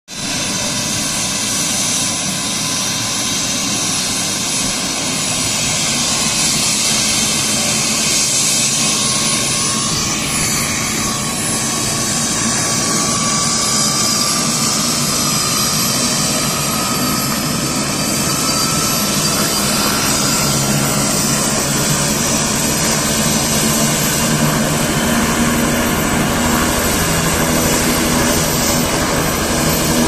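Bell 206 JetRanger helicopter running on the ground with its main rotor turning: the steady whine of its Allison 250 turboshaft over the rotor's rush. The turbine whine rises in pitch around the middle, and the low rotor sound grows stronger toward the end, ahead of take-off.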